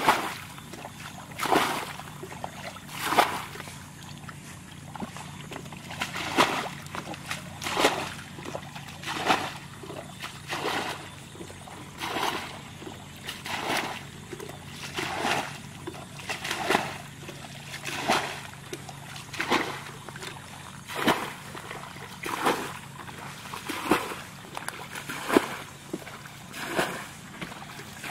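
Water being bailed out of a shallow muddy pool with a bucket, draining it to get at the fish: a splash about every one and a half seconds as each bucketful is scooped and flung out.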